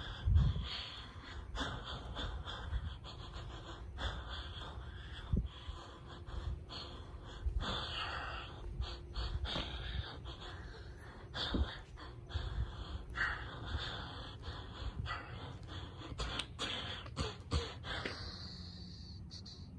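Rustling and handling noise as a person walks in socks on concrete, holding the phone, with breathing close to the microphone: irregular soft hissy puffs and scattered small clicks.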